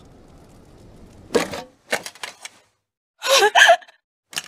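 A faint steady hiss, then a short breathy burst, a few small sharp clicks, and about three seconds in a brief high-pitched cry from a voice, the loudest sound here.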